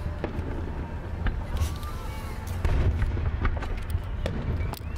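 Aerial fireworks going off, heard from inside a car: irregular sharp pops and bangs over a steady low rumble.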